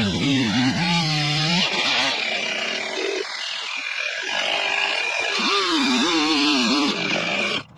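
Stihl MS 271 two-stroke chainsaw running at high revs while cutting wood, its pitch dipping and rising again and again with the load of the cut. It cuts off suddenly near the end.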